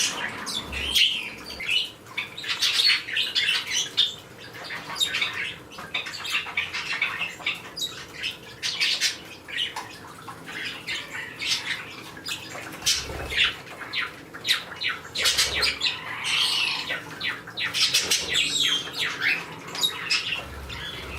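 A group of small parakeets, Bourke's parakeets and a kakariki among them, chirping and squawking in many short high calls, with sharp clicks and a few soft low thumps as they move about.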